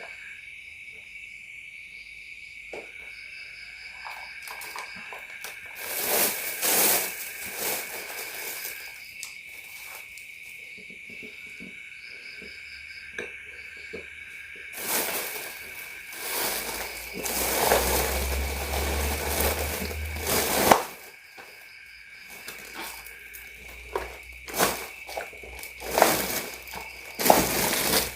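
Night insects, crickets, chirring in a steady high drone. Intermittent stretches of rustling sound over them, and a few sharp clicks or knocks come in the last several seconds.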